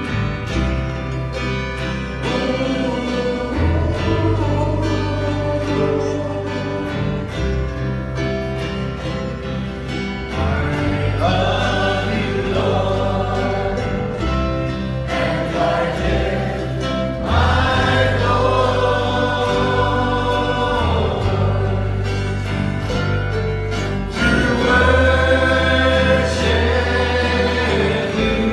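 Gospel-style worship song: a choir singing over a band with steady bass and guitar, swelling fuller in several places.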